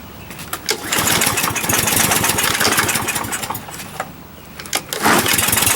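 Briggs & Stratton 625EX lawnmower engine pull-started with its recoil starter, firing and running roughly for about three seconds before dying, then pulled again near the end. It will not keep running, which the owner puts down to a possibly dirty carburetor.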